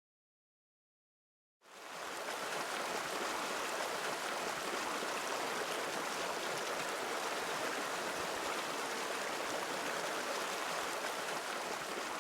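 Silence, then about one and a half seconds in, the steady rush of river water flowing fades in and holds.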